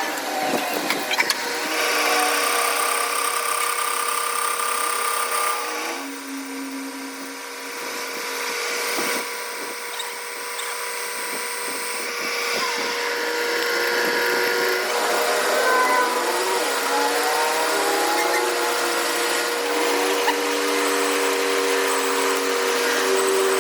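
Power tool running in a metalworking repair, with a steady whine whose pitch shifts several times, plus occasional knocks.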